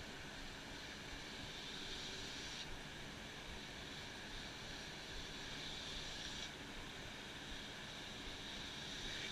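Handheld Wagner spray gun hissing as it sprays coating onto an alloy wheel. The hiss starts and stops as the trigger is worked: off at first, on for about four seconds in the middle, and back on near the end, over a steady low rush.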